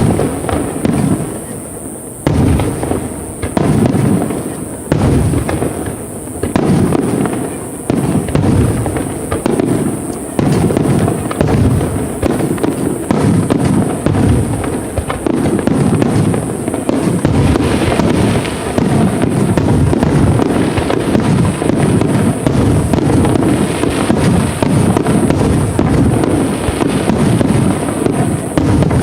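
Fireworks display: aerial shells bursting one after another with deep booms. The bursts come faster about halfway through and run together into a continuous barrage.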